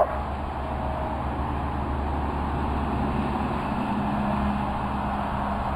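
A dog's bark right at the start, then a steady outdoor background of low rumbling noise with no clear event in it.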